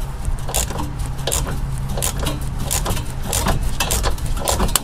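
Hand ratchet clicking in quick, uneven strokes as a tight, rusty rear hub bearing bolt is slowly backed out, with a steady low hum underneath.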